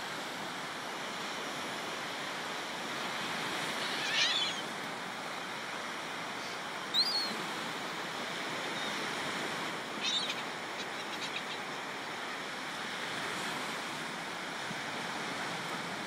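Surf washing steadily onto the beach, with a few short gull calls scattered over it.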